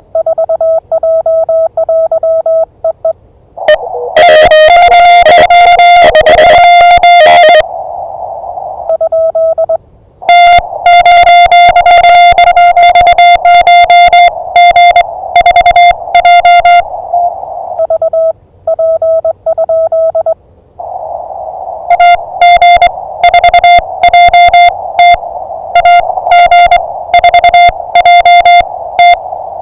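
Morse code (CW) on an amateur radio transceiver in a back-and-forth exchange. A clean keyed tone with no background alternates with longer stretches of louder, buzzier Morse heard in a band of receiver hiss.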